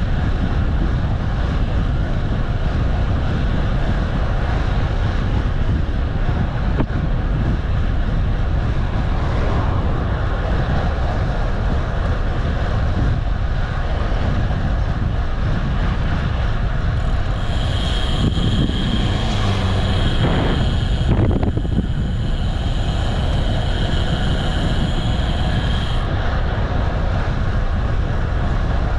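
Steady wind rush on the microphone while riding a bike. Over the second half a high, steady whine joins it for about eight seconds, then stops.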